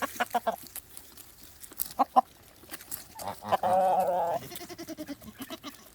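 Chickens clucking in quick runs. About three seconds in a farm animal gives one long wavering call that trails off into short pulses.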